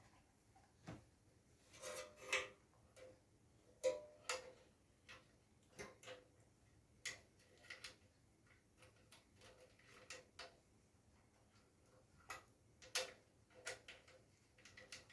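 Faint, irregular clicks and light taps from small tools and parts being handled while a water heater is taken apart and refitted, some with a short metallic ring.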